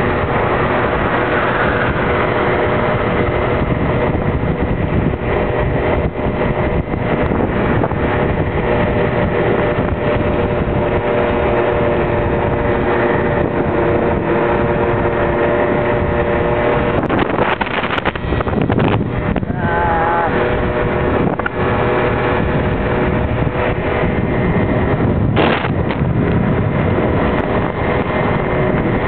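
Small 50cc scooter engine running at a steady cruising speed, mixed with wind rushing over the microphone. The engine note holds steady, then shifts and wavers about two-thirds of the way through.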